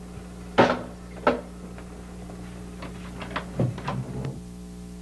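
A telephone handset is set down in its cradle with a sharp clatter, followed by a second knock and then a few light clicks and knocks, over a steady low hum.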